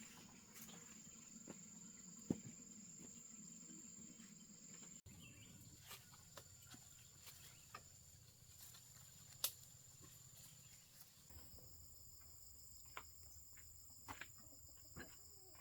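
Faint outdoor insect chorus: a steady high-pitched chirring, with a second, lower insect tone joining about two-thirds of the way through. Scattered faint clicks and taps sound over it.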